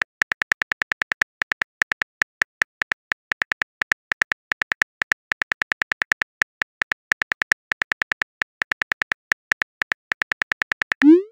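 Simulated phone keyboard typing sounds: a quick run of light key clicks, one per letter, in short bursts with brief pauses. A short rising whoosh comes near the end.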